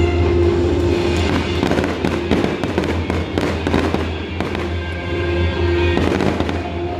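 Aerial fireworks bursting in quick succession, a dense run of bangs and crackles through the middle, with steady music playing underneath.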